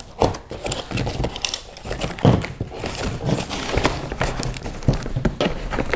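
Cardboard shipping box being cut and pulled open: a utility knife slicing through packing tape and cardboard, then the cardboard flaps bent back and torn, with irregular crinkling, scraping and crackling.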